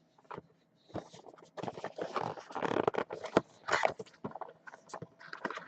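Handling and opening a trading-card box: irregular rustling, crinkling and sharp clicks of cardboard and wrapper.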